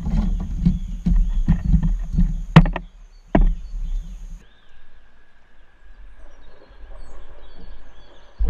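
A hooked bowfin fighting at the side of a plastic fishing kayak. First comes a run of irregular knocks and thumps with two sharp clicks, then a quieter stretch, then a sudden loud splash near the end as the fish thrashes at the surface.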